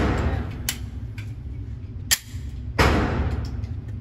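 Gunshots on a shooting range: two loud reports, one right at the start and one about three seconds in, each ringing out afterwards, with two sharper, fainter cracks between them.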